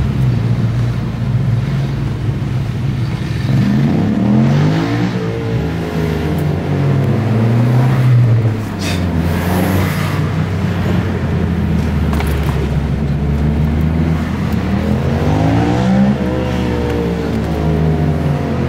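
Engine noise heard from inside a car cabin: a steady low drone, with an engine revving up and back down twice, about four and sixteen seconds in.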